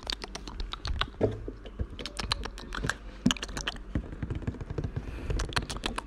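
Quick, irregular taps and clicks of a new MacBook Air and its packaging being handled during an ASMR-style unboxing.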